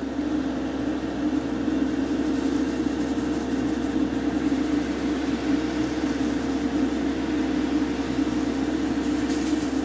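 Extractor fan of a hobby spray booth running steadily, with an even whir and a constant hum.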